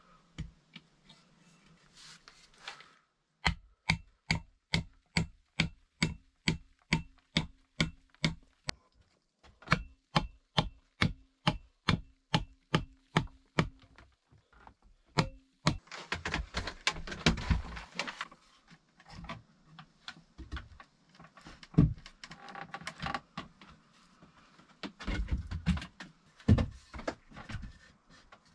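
A tool striking wood in a quick, even run of knocks for about twelve seconds, with a short pause midway, typical of hammering or chopping while building a table from deadwood. Then rustling and a few scattered knocks on wood.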